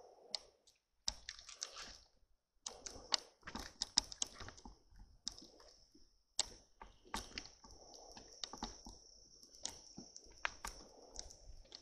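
Footsteps and rustling through tall grass and reeds: irregular crackles, clicks and swishes of stems brushing and being stepped on, over a steady high-pitched tone.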